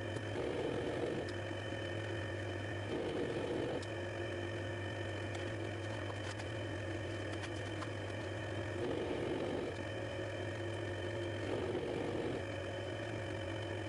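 Small metal lathe running, its spindle turning as a high-speed-steel tool cuts an external thread on the workpiece: a steady motor hum with a few steady high tones, swelling louder about four times.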